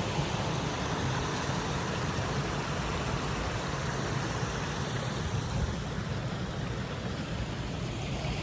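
Steady rushing of falling water from a waterfall, an even hiss over a low rumble.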